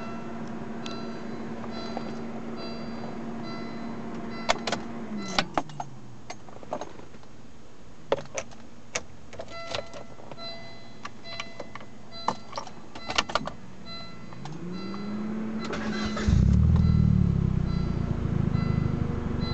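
2000 Volvo S40 with the ignition on and the engine not firing. A steady electrical whine winds down about five seconds in, followed by a run of sharp clicks from the key and switches. The whine winds back up near the end, and about sixteen seconds in a much louder low rumble sets in and keeps going.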